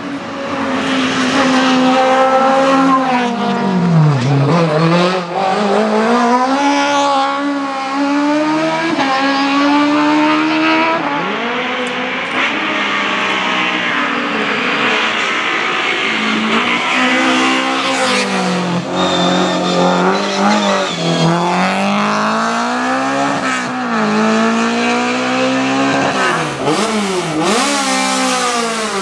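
Hillclimb racing cars' engines revving hard through the gears, one car after another. The pitch repeatedly drops as they brake and shift down for a hairpin, then climbs as they accelerate away.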